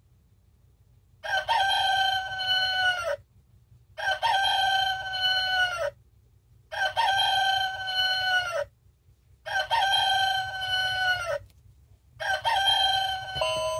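Tozai talking alarm clock's rooster alarm going off: an electronic cock-a-doodle-doo call, about two seconds long and dropping in pitch at its end, repeated five times at even intervals of about two and a half seconds.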